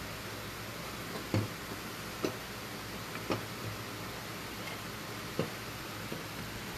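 Plastic cowl trim panel below the windshield being pressed into place: four sharp clicks a second or so apart as its clips snap home, with a few softer taps, over a low steady hum.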